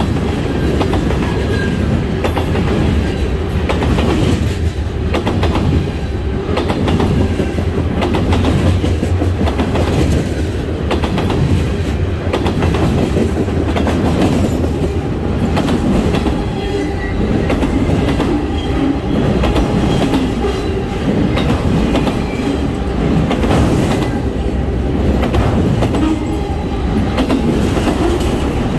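Norfolk Southern manifest freight train rolling past, tank cars giving way to autorack cars: steady rumble of steel wheels on rail, with a constant run of clicks as the wheels cross rail joints.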